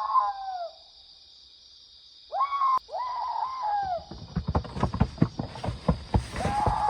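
Drawn-out, wavering wailing calls, one just at the start, two together about a third of the way in and another near the end, over a steady high insect-like drone. From a little past halfway, a run of rapid low thumps joins in.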